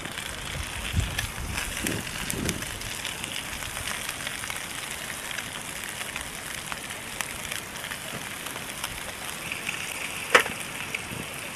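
Brook trout frying in a pan of hot oil, a steady sizzle full of fine crackles and spits, with a few dull knocks in the first couple of seconds and one sharp pop about ten seconds in.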